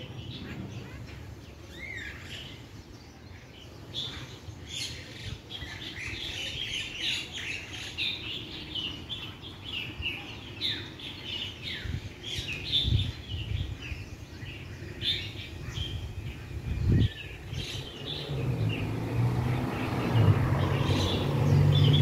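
Many small birds chirping and twittering in the trees, a dense chatter of short high calls with a few rising whistles. From about eighteen seconds in, a low droning hum grows louder beneath them.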